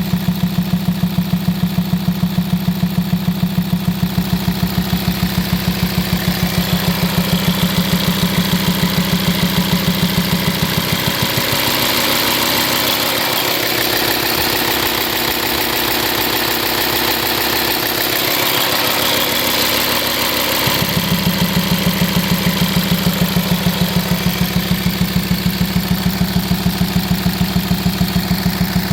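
VW Touareg 2.5 TDI five-cylinder diesel idling with a rhythmic, pulsing boom and miss; the cause was worn camshaft lobes and followers. The boom falls away for about nine seconds in the middle, leaving a smoother idle, then comes back.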